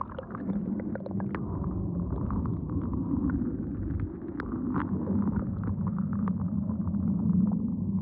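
Swimming-pool water heard through a submerged microphone: a steady, muffled low rumble of moving water with many small crackling bubble pops.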